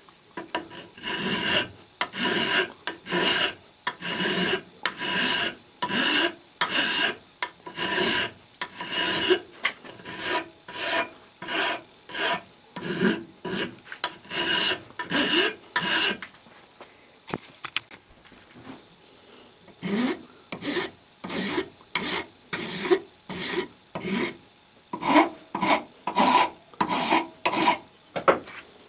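Hand file scraping back and forth across a cast aluminium anvil casting held in a vise, dressing off its parting line. The strokes come at about two a second, stop for a few seconds in the middle with a single click, then start again.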